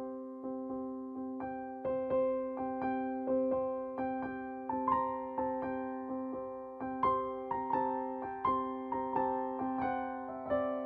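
Background music: a gentle piano or electric piano melody over a sustained low note, with notes struck about twice a second and each one fading away.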